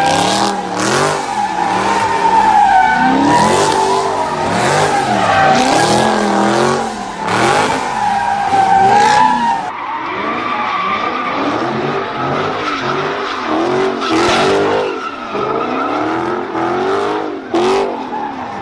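Cars doing donuts: tyres squealing in a long, wavering screech over an engine revving up and down. The sound changes about ten seconds in, as a second car takes over.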